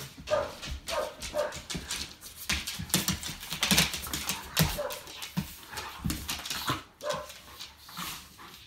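Two puppies play-fighting: short yips and whimpers mixed with scuffling and claws clicking on a hardwood floor, busiest a few seconds in.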